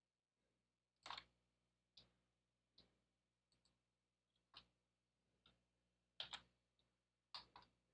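Faint, uneven clicks of a computer mouse and keyboard, about a dozen, some in quick pairs.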